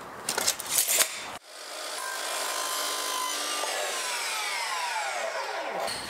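A few knocks as the back band moulding is set on the saw, then a sliding compound miter saw cutting it. The saw's blade is left spinning down after the cut, with a falling whine.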